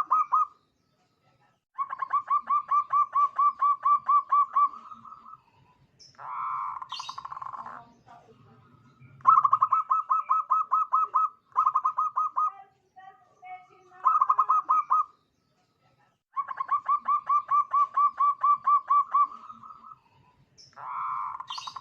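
Zebra dove (perkutut) singing: repeated phrases of rapid, evenly spaced staccato coos, about four notes a second, each run lasting one to three seconds, with brief buzzier sounds between some of the phrases.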